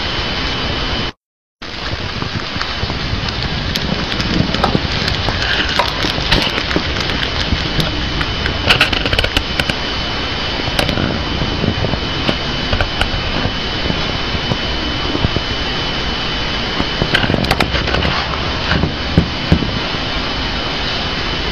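Steady loud hum and hiss with a thin high whine running through it, cut off briefly about a second in; faint scattered clicks sit on top of it.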